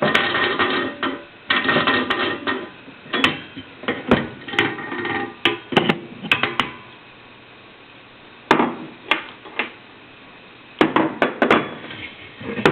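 Metal clattering and sharp knocks from roaster parts and a wrench being handled while a coffee sample roaster is taken apart, with some metallic ringing at the start, then scattered clicks and a short lull in the middle.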